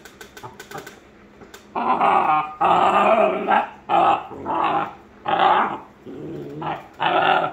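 Great Dane puppy 'talking' in rough play with an older dog: a string of about seven drawn-out, growly vocal bursts starting about two seconds in, the longest about a second, after a few light clicks.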